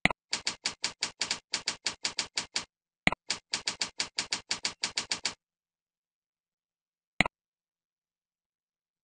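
A computer mouse click, then a quick run of keyboard keystrokes at about seven a second, another mouse click and a second run of keystrokes. A single mouse click comes near the end, with dead silence between the runs.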